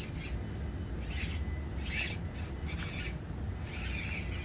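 Axial SCX24 micro RC crawler working its way over the course: short rasping scrapes of its tyres and chassis against the obstacles come four or five times over a steady low rumble.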